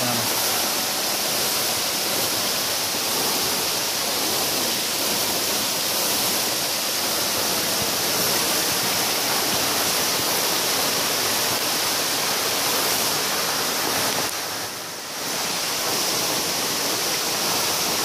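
A waterfall rushing steadily close by, its falling water making a constant, even noise that dips briefly about fifteen seconds in.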